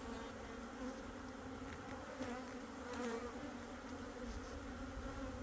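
A mass of honeybees buzzing steadily around an open hive, a continuous hum of many wings.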